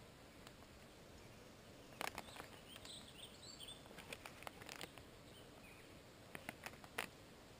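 Quiet woodland background with a few faint bird chirps about three seconds in, and scattered light clicks and taps, the sharpest one near the end.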